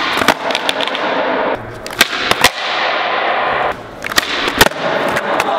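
Skateboard wheels rolling on a smooth concrete floor, broken by sharp cracks of the tail popping and the board slapping down during flatground flip-trick attempts, with clusters of cracks near the start, about two seconds in and around four seconds in.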